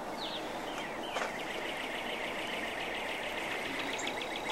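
A bird singing over a steady background hiss: a few downward-sliding whistled notes, then a fast, even run of short repeated notes that carries on to the end.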